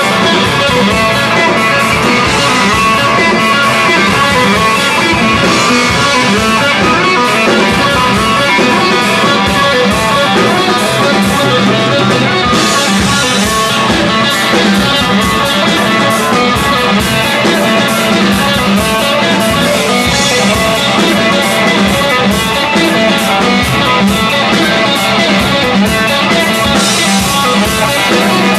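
Rock band playing loud: electric guitar with a drum kit pounding steadily underneath, with no break in the music.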